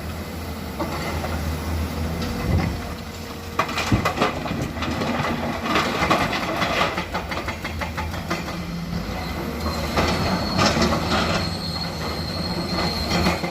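Komatsu PC200 hydraulic excavator working: a steady low engine drone with repeated metallic clanks and clatter, and a high squeal joining in near the end.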